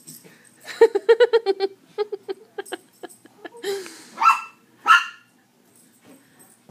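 Yorkshire terrier barking: a quick string of short high yaps about a second in, a few more spaced yaps, then two longer, higher-pitched yelps around four and five seconds in.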